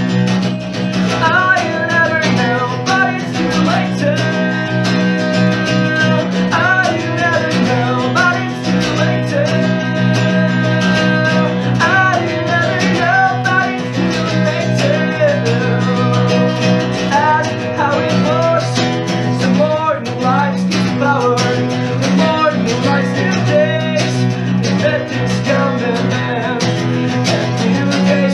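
Acoustic guitar strummed in a steady accompaniment, with a wavering melody line above it.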